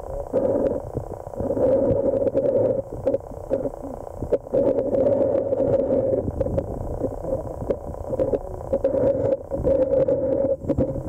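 Muffled underwater noise picked up by a submerged camera: a low rumble with a droning hum that comes and goes every second or so, and scattered small clicks.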